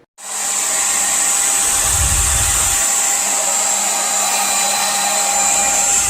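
Revlon 1875-watt infrared ionic hair dryer switching on and running steadily: a loud rush of air with a high-pitched motor whine over it.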